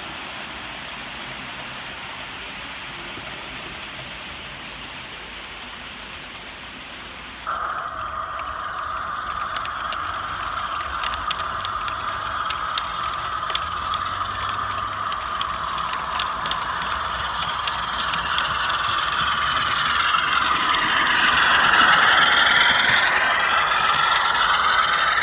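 Model trains running on a model railway layout. First there is a steady hiss. About seven seconds in it switches to a closer, louder running sound, with sharp clicks of model coach wheels over rail joints and a whirring, shifting tone that grows louder as a model Class 47 diesel approaches.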